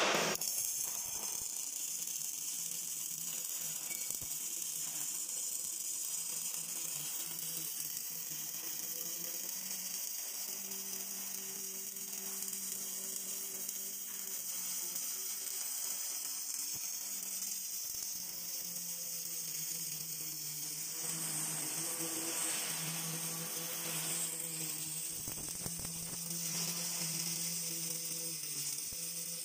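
Automatic girth welding machine's MIG arc welding a hydraulic cylinder barrel to its end cap: a steady crackling hiss over a low, steady machine hum.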